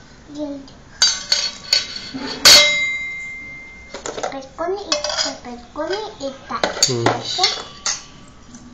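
Steel plate and utensils clinking and knocking, with one loud metallic clang about two and a half seconds in that rings on briefly.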